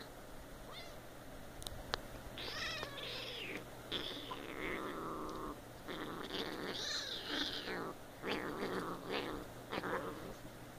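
Two young kittens play-fighting, giving a string of meows and squeals as they wrestle, with a few light knocks from the scuffle.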